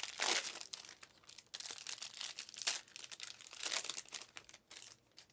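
Irregular crinkling and rustling of trading cards and their plastic or foil packaging being handled.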